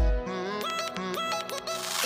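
Background electronic music: a deep bass drum hit at the start, then short gliding synth notes, with a hissing swell building near the end.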